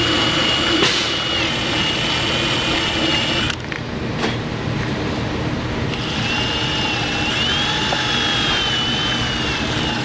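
Power tool spinning a wire brush against a battery terminal and post to scrub off corrosion, a high whine that wavers as the brush bites. It stops about three and a half seconds in, then runs again from about six seconds.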